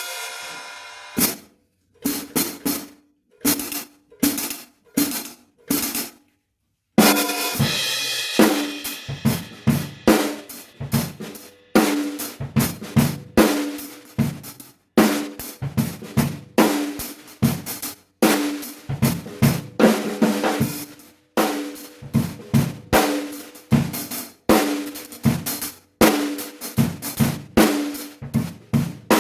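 Zeus Spiral 14-inch B20 hi-hat cymbals played: a few separate strikes with pauses, then from about seven seconds a steady drum-kit groove, the hi-hat ticking over snare drum and bass drum.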